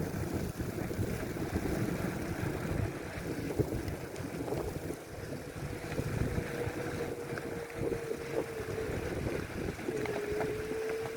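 Wind buffeting the microphone with a low rumble, as on a moving bicycle in a snowstorm. A steady hum joins about halfway through and drops slightly lower near the end.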